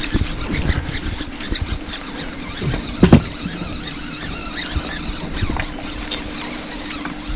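A boat motor humming steadily, with irregular low wind buffeting on the microphone and one heavy thump about three seconds in.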